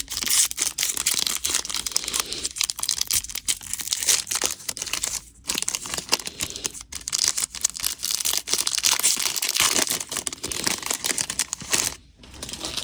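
A plastic trading-card pack wrapper being torn open and crinkled in the hands: a dense, irregular crackle that stops near the end.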